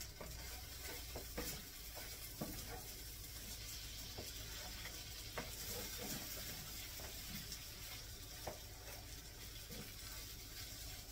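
Browned ground beef sizzling faintly in a skillet as a wooden spoon stirs it, with a few light scrapes and taps of the spoon against the pan.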